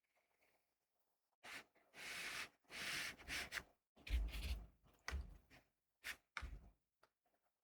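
Soft, short brushing and rubbing sounds from painting on watercolour paper, several strokes in a row, with a couple of low bumps from handling on the table.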